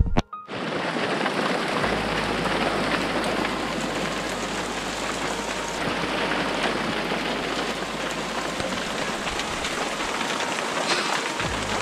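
Heavy torrential rain pouring down steadily, starting abruptly about half a second in.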